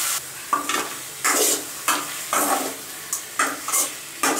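Raw chicken pieces being ladled into hot onion-tomato masala in a steel kadai, with a steel ladle scraping and stirring. It comes as a run of short sizzles and scrapes, about two a second.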